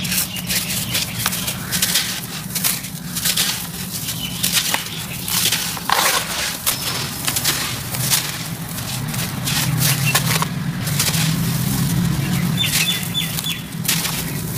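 Lumps of dry sand-cement crushed and crumbled by hand over a basin of water: a dense run of gritty crunching and crackling as the chunks give way, with crumbs and powder pouring down.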